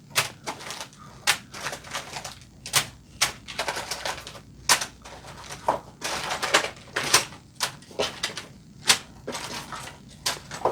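Bagged LEGO parts being handled and set down: irregular clicking and rattling of loose plastic bricks inside plastic bags, with short rustles of the bags.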